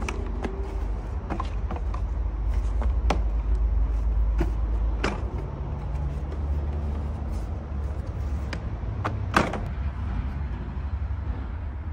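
Hard plastic knocks and clicks from a removed car dashboard being handled and its parts pulled, scattered over a steady low rumble, with one louder knock about nine seconds in.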